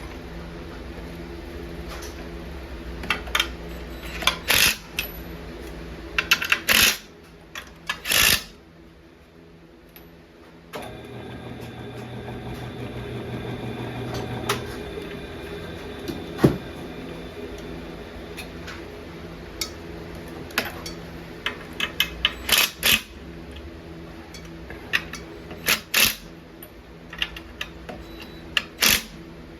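Metal lathe running in reverse with a brake drum turning on it, a steady motor hum broken by repeated sharp metal clanks and rattles as the drum's lug nuts are worked snug. The motor stops for a couple of seconds about a third of the way in, then starts up again.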